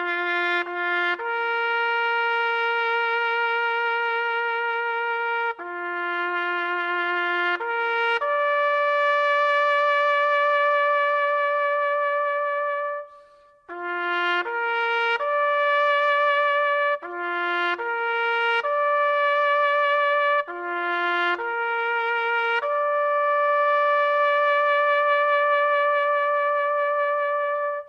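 Solo melody on a trumpet-like brass instrument with no accompaniment. Runs of short notes lead into long held ones, with a brief break about 13 seconds in.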